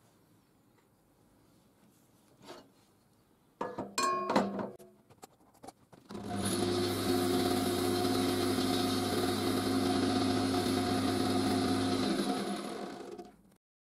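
A few loud metal clanks and rattles about four seconds in. Then a woodturning lathe switches on and runs steadily with its motor humming. About six seconds later it is switched off and the spinning chuck and workpiece coast down to a stop.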